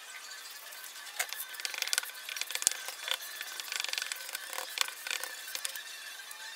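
Transfer tape over a vinyl stencil crackling and crinkling as hands rub it down on the board and start lifting it at a corner. An irregular run of small crackles starts about a second in and dies away near the end.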